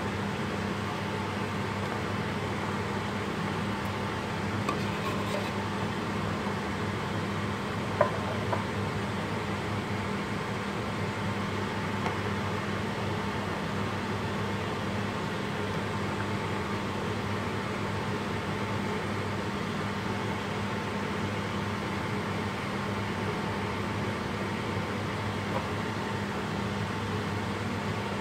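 Steady hum and whir of a kitchen fan. About eight seconds in, a metal utensil clinks sharply against the steel pot.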